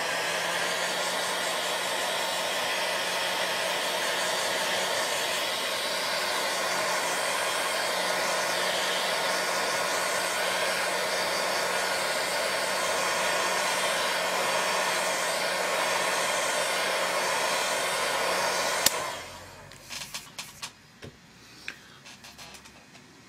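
Handheld hot-air dryer running steadily, a constant blowing rush with a low hum, drying a paint wash on a crackle-medium finish. It switches off about nineteen seconds in, followed by a few light handling clicks and taps.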